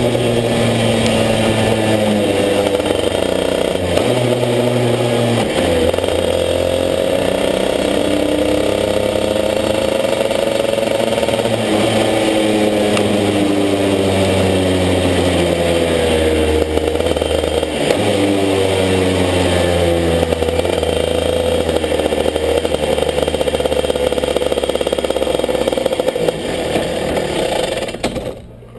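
Racing kart engine heard from on board, revving up and falling back again and again as the kart is driven through corners. It settles to a lower, steadier note and then falls away sharply near the end.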